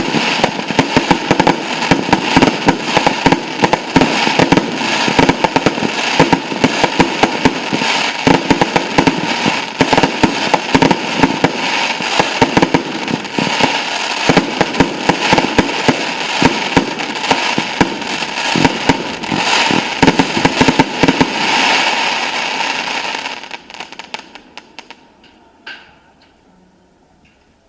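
Fireworks finale: a dense, rapid barrage of bangs over continuous crackling, which dies away about 24 seconds in, leaving a few last scattered pops.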